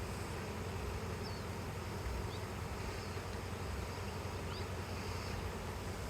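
A swarm of honey bees buzzing: a steady, dense hum of many bees flying in the air together.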